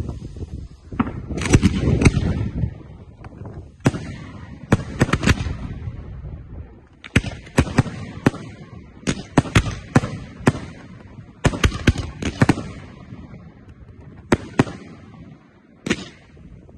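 Aerial firework shells bursting overhead: a rumbling stretch about two seconds in, then a long series of sharp bangs, mostly in quick groups of two to four.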